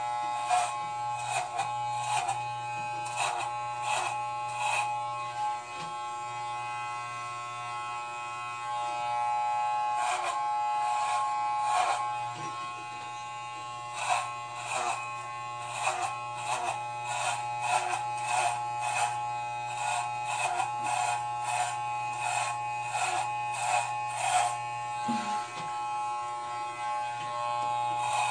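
Corded electric hair clipper buzzing steadily while shaving long hair off the side of a head, with many short rasps as the blades bite into the hair. The rasps come in spells, with a few seconds of plain buzzing about five seconds in and again briefly after twelve seconds.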